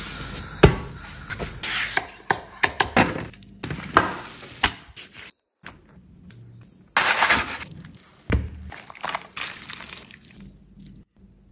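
Close-up cooking sounds in quick succession: sharp knocks, cracks and crackles as a large flatbread is handled on a cast-iron pan, then a longer wet, noisy stretch as slow-cooked lamb is lifted from its juices and pulled apart by hand. There are brief gaps between shots.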